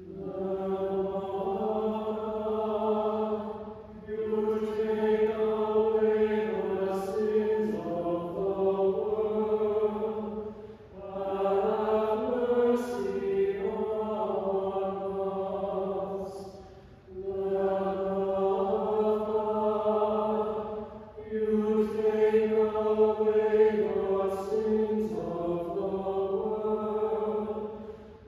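Robed church choir chanting in harmony, in five long phrases of held notes with short breaks for breath between them.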